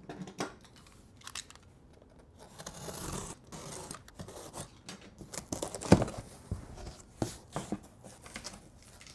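A cardboard shipping box being opened: packing tape cut and torn along the top, then the cardboard flaps scraped and pulled open, with irregular scratching and rustling and one loud knock about six seconds in.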